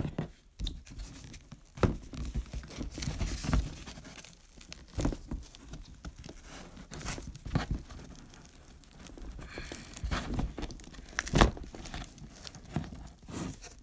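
Corrugated plastic hose being worked and pushed into a hole in cardboard: irregular scraping, crinkling and knocking of the ribbed plastic against the cardboard, with one sharper knock near the end.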